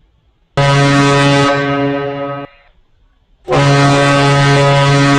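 Deep horn blasts sounding Morse code: a blast of about two seconds, then after a one-second gap a longer blast, the dot and dash that close the letter U (dot-dot-dash).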